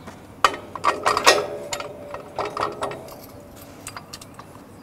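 Steel trailer jack being fitted onto a cattle chute's steel jack receiver and pinned in place: metal-on-metal clanks and rattles. The loudest clank, about a second in, rings briefly, and smaller clicks follow.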